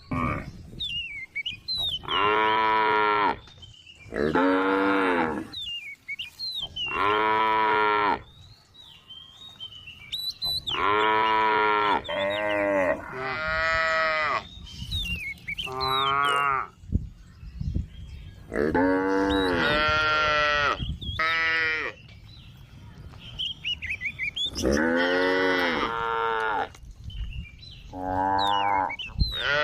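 Cows mooing in turn, about a dozen long calls of a second or two each with short gaps between them. Faint high chirps can be heard in the gaps.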